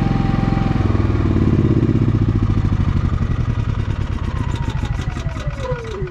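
Genmax GM10500iETC inverter generator's 458 cc four-stroke engine, running on natural gas, is switched off and winds down. Its firing pulses slow and spread out, and a whine falls steadily in pitch over the last couple of seconds.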